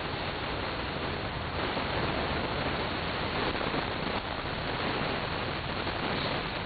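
Steady rumble and hiss of a moving tram, heard from inside the passenger cabin.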